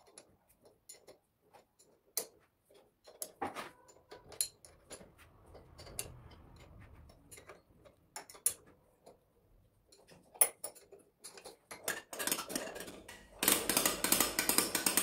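Scattered metal clicks and clinks of a wrench, bolts and a thin metal disc being handled on a compressor's end cover. Near the end a dense, fast run of metallic clicking sets in and is the loudest part.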